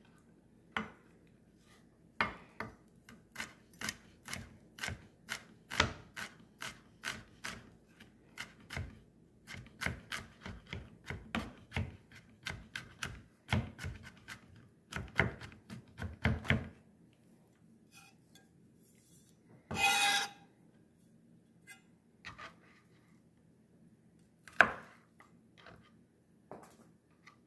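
Kitchen knife chopping on a cutting board in quick, uneven strokes about three a second, stopping about two thirds of the way through. A short scrape follows, then a single knock near the end.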